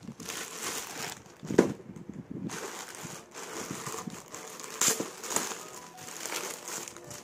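Plastic courier bag crinkling and rustling in irregular bursts as it is handled and opened, with louder crackles about one and a half seconds in and again about five seconds in.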